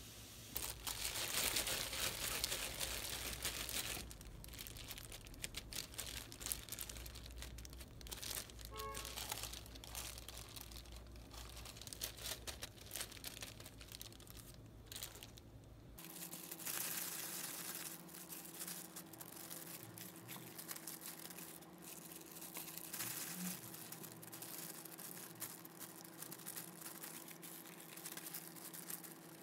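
Plastic crinkling and rustling: a bag of breadcrumbs being handled, then disposable plastic gloves rustling as hands shape patties and coat them in flour and beaten egg. A faint steady hum joins about halfway through.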